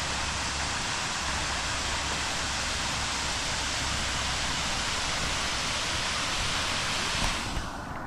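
Steinsdalsfossen waterfall rushing: a steady dense hiss of falling water that fades sharply in its upper register near the end.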